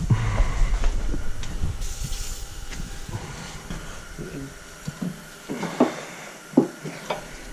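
Aerosol can of penetrating fluid spraying in a short hiss about two seconds in, followed by light clinks of parts and tools.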